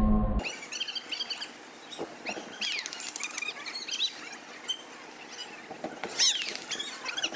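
Fighters' feet shuffling on a taekwondo competition mat, giving many short, high squeaks, with scattered sharp knocks. A short bit of music cuts off about half a second in.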